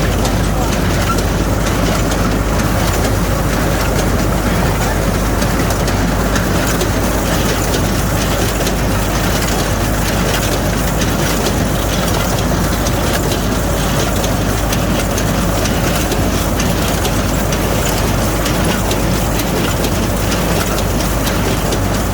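Hay baler running, with a steady engine drone under a continual mechanical clatter.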